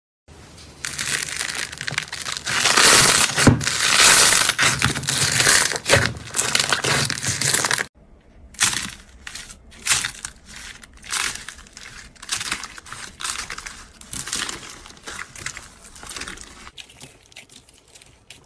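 Slime being squeezed and pressed by hand, a dense run of crackling and popping for about eight seconds, then, after a short break, separate crackles and pops.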